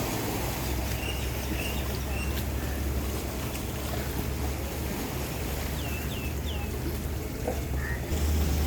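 Steady low drone of a boat engine under wind and water noise, with a few short, high, falling chirps about a second in and again around six seconds in.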